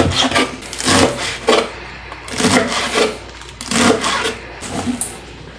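Chef's knife cutting through a rolled-up bunch of curly lettuce on a wooden cutting board: a run of repeated crisp slicing strokes, each ending with the blade knocking on the wood.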